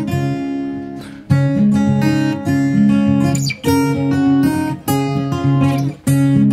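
Background music: acoustic guitar strumming chords, with brief breaks between phrases.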